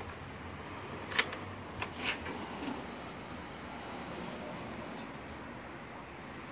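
A few sharp clicks as the ignition key is turned on a Suzuki GSX-R1000 K6, then a steady high whirr for about three seconds that cuts off suddenly: the fuel pump priming at key-on, with the engine not yet running.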